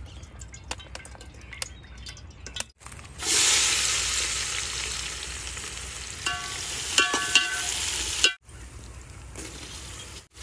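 Sliced onions dropped into hot oil in an aluminium pot over a wood fire, sizzling loudly and slowly easing off. From a little past halfway, a steel ladle stirs and knocks against the pot with ringing metallic clinks.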